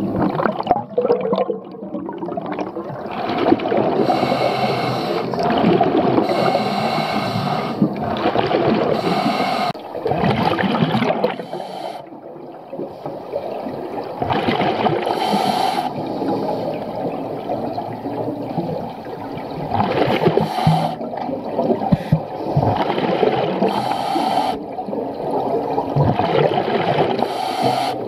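A scuba diver breathing through a regulator underwater: hissing inhalations alternating with gurgling bursts of exhaled bubbles, one breath every few seconds.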